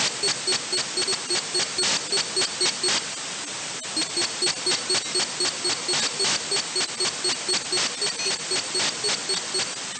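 Unidentified radio signal picked up on an RTL-SDR receiver and played as audio: short pulses at about four a second, each with a low and a high tone, over a steady hiss. The pulses break off briefly about three and a half seconds in.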